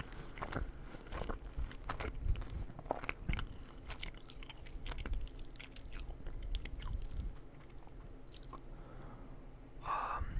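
A person chewing and biting food close to the microphone: irregular crunches and wet mouth clicks, growing quieter in the last few seconds.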